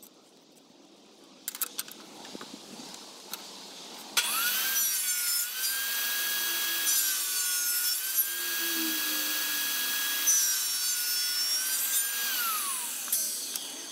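A jobsite table saw is switched on about four seconds in and its blade whines up to speed. The pitch sags twice as it crosscuts a small wooden block fed on the miter gauge, then the saw is switched off and spins down near the end. Before it starts there are a few light knocks as the block and gauge are set in place.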